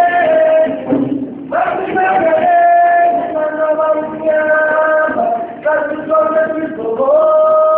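Unaccompanied voices singing, holding long notes in phrases with short breaks between them.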